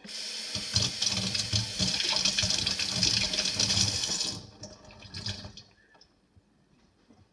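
Water running from a tap and splashing as a silicone pop-it fidget toy is filled; the flow stops about four and a half seconds in, followed by a few light handling knocks.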